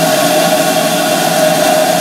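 Steam hissing steadily from GWR 'Saint' class 4-6-0 No. 2999 'Lady of Legend' standing in steam: an even rush of escaping steam with a constant tone running through it.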